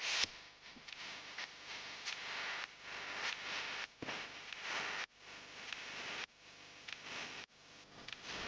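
Ginger garlic paste sizzling in hot oil in a pan as it sautés, a steady hiss that breaks off briefly a few times, with occasional light clicks.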